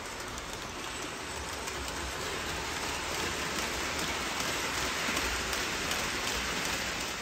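MTH RailKing Union Pacific Hudson O-gauge locomotive and its passenger cars rolling along three-rail track: a steady rumbling hiss of metal wheels on the rails and the locomotive's motor, with faint clicks over the rail joints, swelling a little as the train passes close. No chuff or whistle, since the locomotive's sound board is burned out and it now runs on a bridge rectifier.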